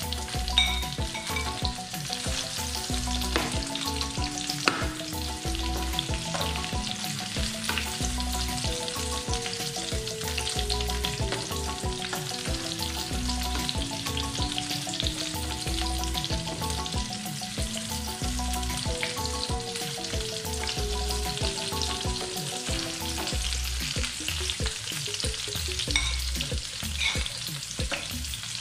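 Chopped onion, potato and carrot sizzling in a frying pan, with a metal spoon scraping and clinking against the pan as they are stirred. Soft background music with a stepping melody and a steady bass beat plays underneath and stops a few seconds before the end.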